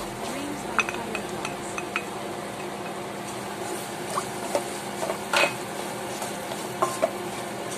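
Stirring and scraping in a non-stick frying pan as masala paste is mixed into sautéing onions and tomatoes, over a steady sizzle of frying. Scattered short taps and scrapes of the utensil against the pan, the loudest about five seconds in.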